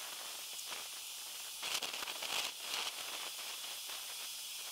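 Faint steady outdoor background hiss, with a brief rustling, crackling swell about two seconds in.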